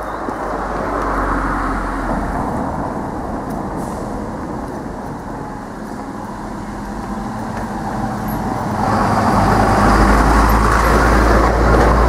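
Road traffic: a lorry or bus and a car drive past on the street, a steady engine and road rumble that grows louder and deeper about three-quarters of the way through.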